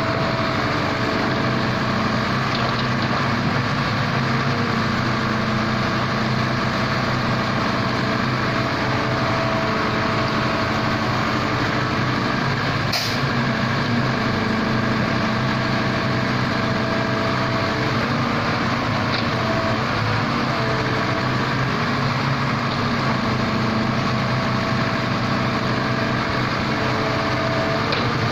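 Wheeled excavator's diesel engine running steadily under working load as it digs and dumps with its shell bucket, with a single short click about halfway through.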